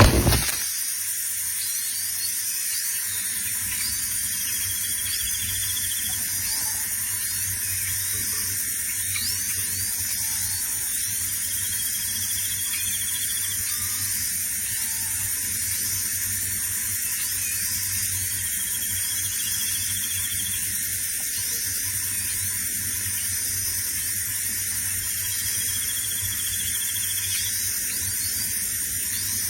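A brief knock at the very start. Then a small bird gives a short buzzy trill about every six seconds, over a steady high insect-like drone with many faint chirps.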